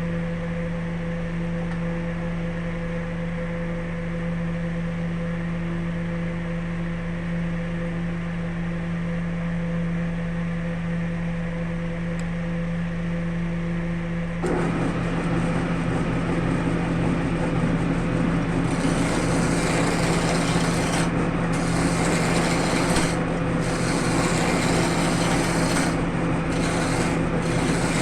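Wood lathe motor running with a steady hum. About halfway through, a tool is set against the spinning wood and scrapes it with a loud rasping noise that keeps going, breaking off briefly several times near the end.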